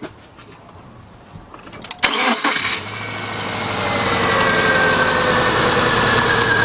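A 2000 Subaru Impreza Outback's 2.2 flat-four engine being started: a short burst of starter cranking about two seconds in, then the engine catches and idles steadily, with a faint high whine that slowly falls in pitch. The engine has a customer-reported misfire and runs rough.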